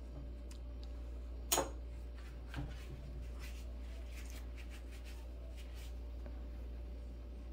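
Light handling noises from piping bags of icing at a table: a sharp tap about a second and a half in, a softer knock a second later, then faint rustling, over a steady low hum.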